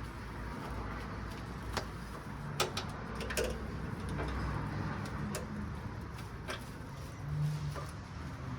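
Scattered sharp clicks and knocks of metal parts and tools being handled during work in a car's engine bay, over a low hum.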